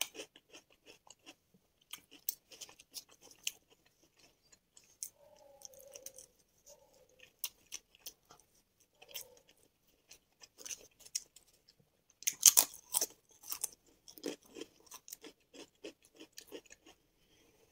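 Close-miked eating sounds: a person crunching and chewing a potato chip, then chewing a spoonful of mushroom biryani. A loud crunchy bite about twelve seconds in is followed by a second run of steady chewing.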